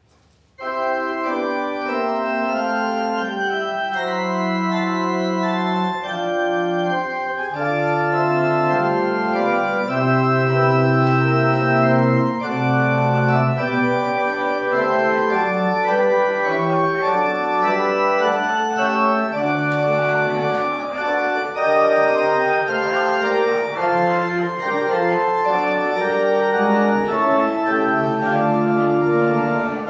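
Organ playing a postlude of slow, held chords with deep sustained bass notes. It starts abruptly about half a second in, after near silence.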